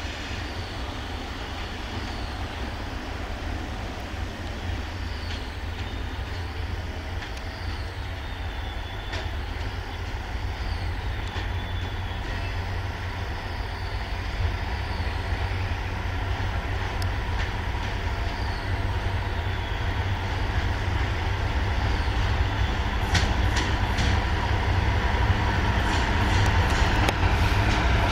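BR232 'Ludmilla' diesel locomotive running under load as it approaches with a freight train, its V16 diesel engine a deep, steady rumble that grows steadily louder. A few sharp clicks of wheels over rail joints come near the end as the train draws close.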